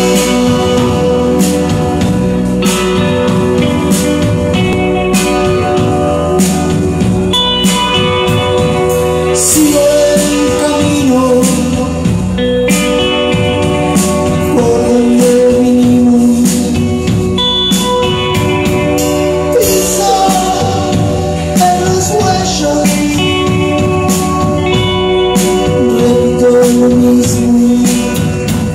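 A band playing a song: singing over instruments, with a steady percussion beat.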